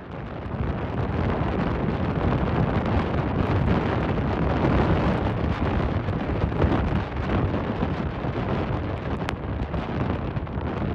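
Hurricane-force wind buffeting the microphone as a steady rushing noise, over storm-surge waves breaking and washing across a flooded road.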